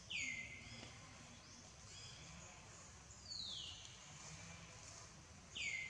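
A bird calling: a high whistle that sweeps sharply down and then holds, given right at the start and again alike near the end, with a longer downward-sliding whistle in between. Faint high chirping from other birds or insects carries on behind it.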